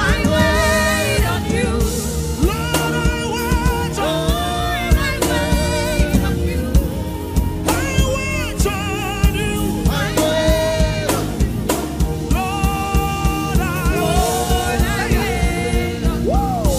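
Gospel worship music: a voice singing long, wavering notes over a steady drum beat and sustained low accompaniment.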